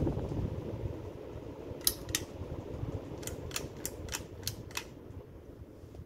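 Hunter Adirondack ceiling fan running, a low noisy whir from the spinning blades and motor that slowly fades. Near the middle come about eight sharp clicks, a few tenths of a second apart.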